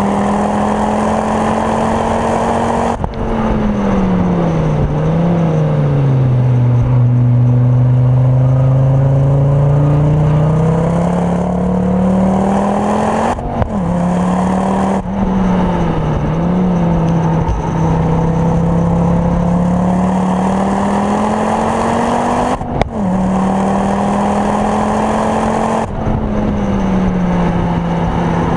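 Ford Focus RS Mk2's turbocharged 2.5-litre five-cylinder engine, Mountune-tuned to 420 bhp with a full Milltek exhaust, heard from inside the car while it is driven hard on track. The engine note climbs under acceleration and breaks off sharply several times at gear changes. Under braking the pitch falls, with a couple of quick blips on downshifts.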